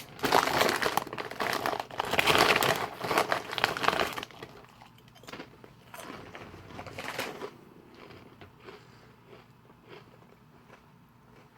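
Potato chip bag crinkling and rustling loudly for about four seconds, then fainter scattered crackles and crunches.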